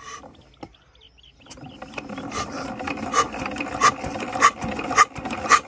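20 hp Petra diesel engine being hand-cranked for a start: from about a second and a half in, a continuous mechanical rubbing rattle of the turning crank and flywheel, with a regular clank roughly every 0.6 s as it comes round. The engine has not yet fired.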